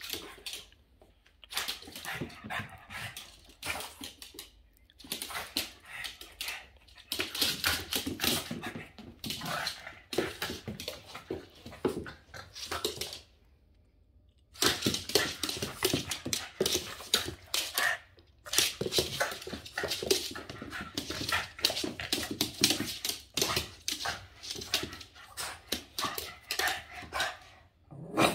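Boston terrier barking in bursts during excited play, with a break of about a second roughly halfway through.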